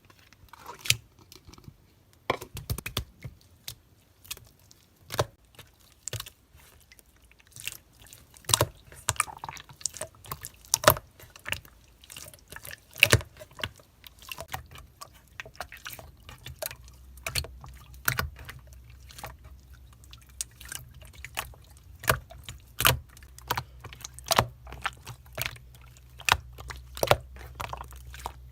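Slime being worked by hand, making irregular sticky, wet clicks and pops. A low steady hum joins about halfway through.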